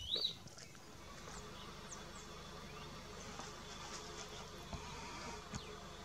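Field ambience: a bird's clear whistled note ending in a quick rising flourish right at the start, then a faint steady hum with scattered thin bird chirps.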